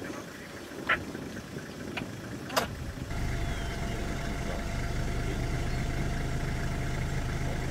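A couple of sharp clicks, then about three seconds in a vehicle engine starts up and idles steadily.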